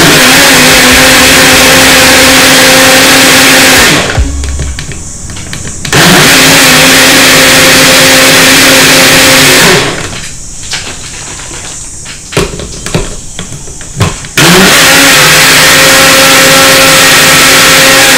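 Personal bottle blender running in three bursts of about four seconds each with short pauses between, its motor running loud and steady while it blends a mango, milk and ice milkshake.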